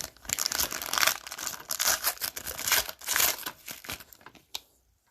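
Plastic packaging crinkling and rustling as it is handled, a run of crackly rustles that stops about four seconds in.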